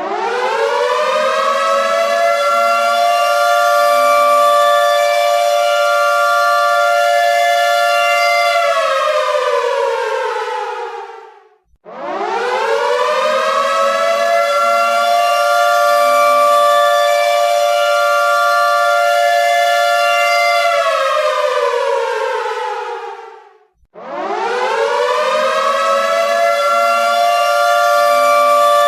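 Air raid siren wailing in repeated cycles. Each cycle winds up over about two seconds, holds a steady two-note chord for about six seconds, then winds down and cuts off briefly. A new cycle starts roughly every twelve seconds.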